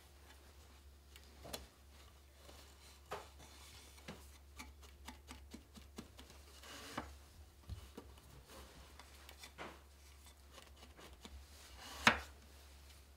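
Hands weaving on a small wooden frame loom: a thick weft strand rubbing through the taut warp threads as it is laid in and pressed down by hand, with scattered soft taps on the wooden frame and one sharper knock near the end.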